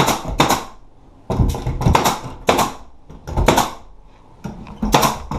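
A series of short knocks and clatters, unevenly spaced about once a second, as from hand work with tools or hardware.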